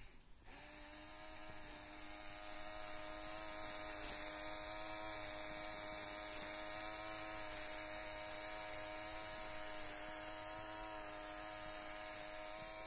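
LEGO Technic M-motor driving the truck's drivetrain, with its gears and driveshaft spinning: a steady, even-pitched electric whir that starts about half a second in.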